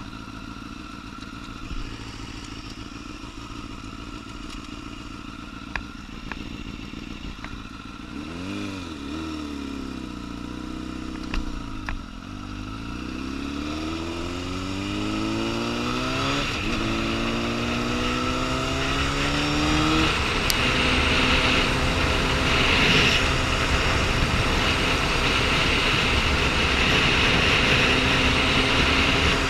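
Liter-class sport motorcycle engine idling, blipped up and down a few times about eight seconds in, then pulling away with the revs climbing through a gear change. After that it runs on at speed under a steady rushing noise that grows louder.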